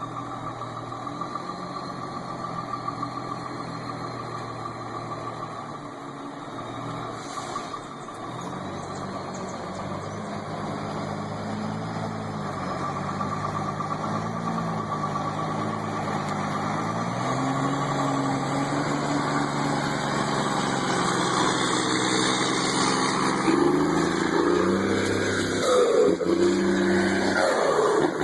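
Heavy vehicle engine running steadily at low revs. About halfway through the pitch steps up, and in the last few seconds it revs higher and louder, the pitch climbing and wavering.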